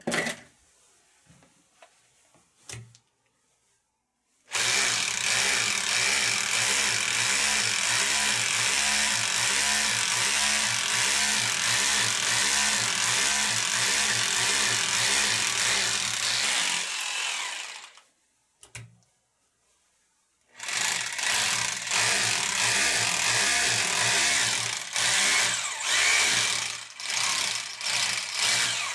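Hilti TE 2-S rotary hammer drilling into a wall, in two runs: a long one of about twelve seconds starting a few seconds in, then, after a pause of a few seconds, a second run of about eight seconds to near the end.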